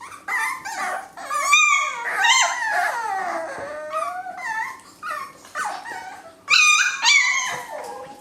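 Several young Cavalier King Charles Spaniel puppies whining and yipping, high cries that rise and fall and overlap one another, with short breaks between bouts. The puppies are crying for something, which the owner reads as wanting something from her.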